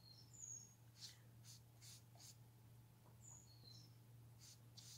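Near silence: faint, soft strokes of a PanPastel sponge applicator rubbing pastel onto paper, several short swishes. Two brief clusters of faint high bird chirps come near the start and just past the middle, over a low steady hum.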